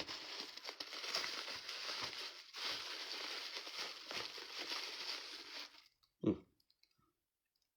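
Packing material crinkling and rustling as hands dig through a container of figurines, for about six seconds with a short break about two and a half seconds in. A brief low sound follows about six seconds in, then quiet.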